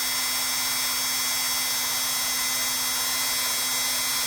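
A small high-speed rotary power tool, used to clean a pocket knife, running steadily at one speed with a constant whine.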